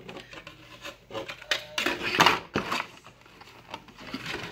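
Irregular scraping and rubbing on a hard plastic armor belt as a glued rivet is worked and pried out, loudest about two seconds in.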